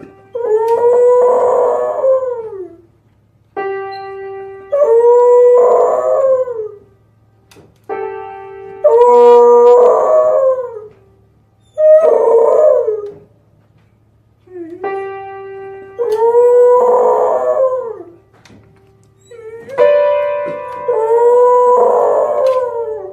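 A dog howling along with a held instrument note, in turns: the steady note sounds, then the dog answers with a long wavering howl, about six times over.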